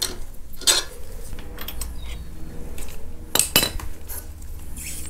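Metal hand tools clinking against a bolt and bracket on a motorcycle while a nut is undone: a few scattered sharp metallic clinks, the two loudest close together about three and a half seconds in.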